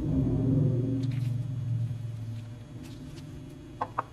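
A low hum fades away over the first two seconds or so, then near the end a steel rivet is set down on a metal work surface with two quick, light metallic clinks.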